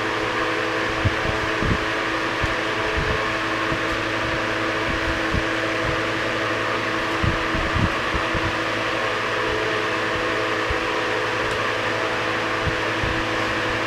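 Late-1940s Victor Scatterbreeze 12-inch electric table fan running steadily at its single speed: a motor hum with steady whining tones over the rush of air from the blade. A few soft low thuds come and go.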